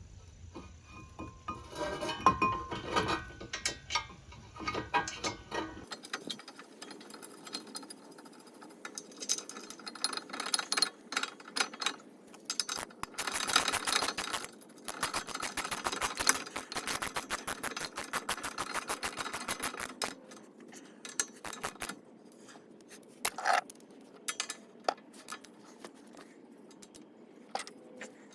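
Metal brake parts and hand tools clinking and knocking while being worked on. In the middle stretch come quick, rapid scraping strokes of parts being cleaned, followed by a few scattered clinks.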